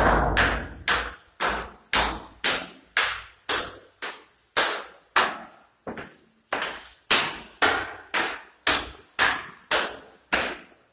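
Footsteps on a hard stairwell and floor, about two a second and evenly paced. Each step is sharp and echoes off the bare walls of an empty building.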